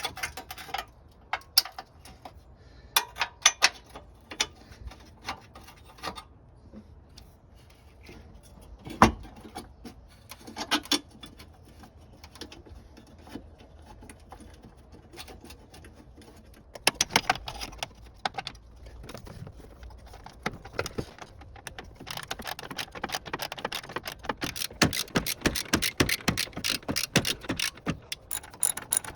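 Scattered metallic clicks and knocks of hand tools. From about two-thirds of the way in, a socket ratchet clicks rapidly and steadily as a fastener is turned.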